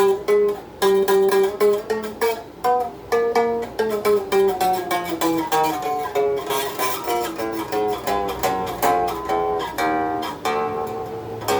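Donner DST-80 Strat-style electric guitar played through its small included practice amp: a steady run of picked single notes and short melodic phrases, several notes a second, with some notes bent or wavering in pitch.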